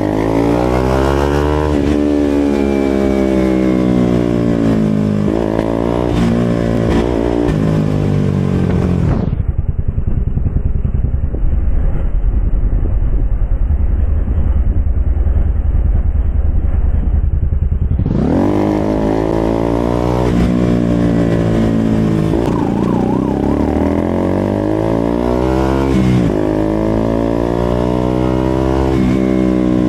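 KTM RC200's single-cylinder engine through an SC-Project aftermarket exhaust, accelerating and shifting up: the pitch climbs and drops back at each gear change, over and over. For several seconds in the middle the sound turns dull and muffled, then the full sound returns.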